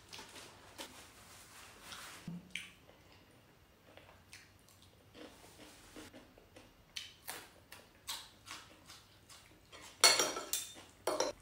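Quiet eating sounds: soft chewing and small mouth clicks, then near the end a louder clatter of a metal fork against a ceramic plate of noodles, twice.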